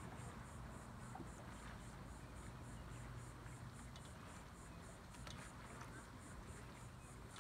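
Faint outdoor ambience: an insect chirring in even pulses, about three a second, over a low steady rumble.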